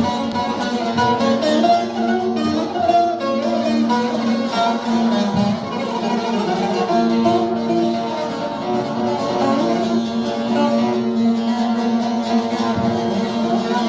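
Instrumental music led by a plucked string instrument, with a melody moving over a steady held low note.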